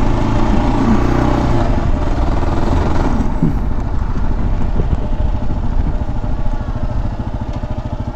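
Adventure motorcycle engine running at road speed on a gravel road, a steady pulsing engine note that eases slightly near the end.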